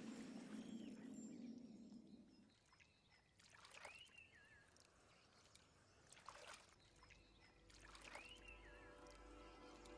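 Faint water sound effects: a low rushing fades out a couple of seconds in. Two short high squeals follow, each rising sharply and falling away, and soft music comes in near the end.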